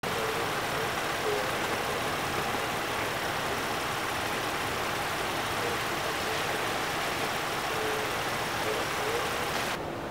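Steady street noise of idling vehicles and traffic along a wet road, a continuous hiss with a low engine rumble under it; it turns duller just before the end.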